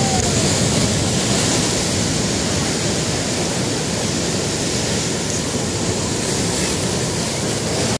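Sea surf breaking over and washing around rocky shore boulders, a steady loud rush of foaming water.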